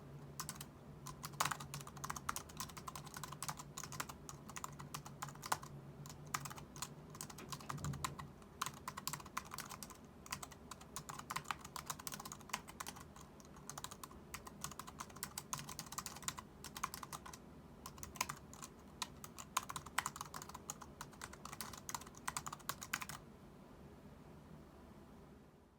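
Typing at speed on an Anker Ultra Slim Bluetooth keyboard: its low-profile keys clack in quick runs broken by short pauses. The typing stops about three seconds before the end, leaving only a faint hiss.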